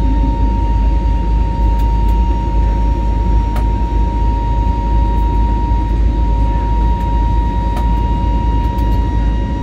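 Cabin noise of an Airbus A320neo airliner with its engines running: a loud, steady rumble and rush of air with a steady whine on top. A few faint clicks come through it.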